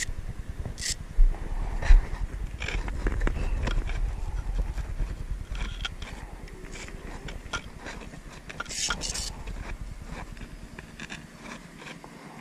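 Velcro strap of a surfboard leash ankle cuff being pulled open and pressed shut: several short ripping rasps, the longest about nine seconds in. Underneath is a low rumble of wind on the microphone, with two bumps in the first two seconds, that fades after about eight seconds.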